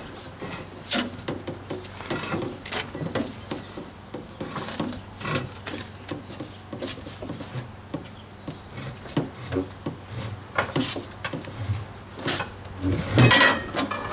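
Steel mounting bar levered around a wheel rim on a manual tire changer, working a soaped tire bead onto the rim: irregular clanks and knocks with rubber scraping against metal, a louder cluster of knocks near the end.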